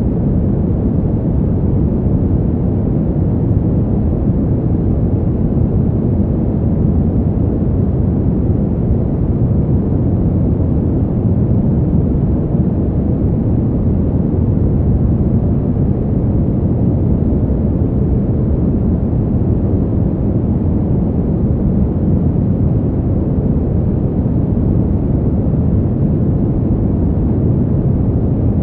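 Brown noise: a steady, deep rumbling hiss with most of its energy in the low end, unchanging throughout.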